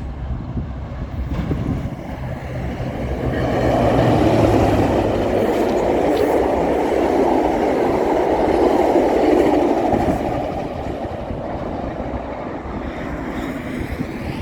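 Train passing close by: a low engine hum for the first few seconds, then the rushing rattle of wheels and cars swelling, loudest for about six seconds in the middle, before easing off.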